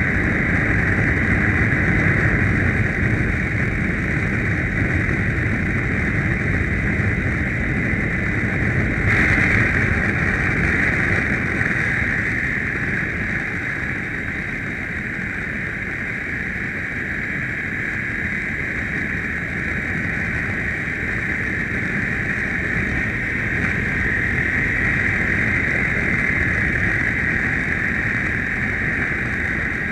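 BMW GS adventure motorcycle riding at a steady cruising speed: a continuous engine drone under a steady rush of wind over the microphone.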